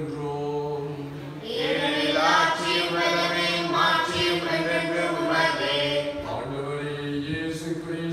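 A man's voice chants a liturgical prayer of the Mass on a steady, held reciting tone. It grows louder and more melodic from about a second and a half in, then settles back near the end.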